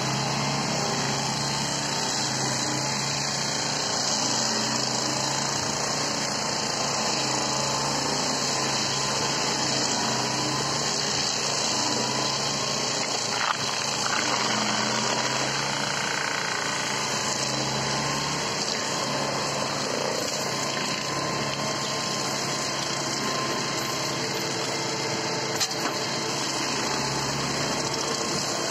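REMET F3-175 tractor-mounted forestry mulcher running steadily, its tractor engine under load while the rotor shreds willow stems and brush. Two sharp knocks come through, one about halfway and one near the end.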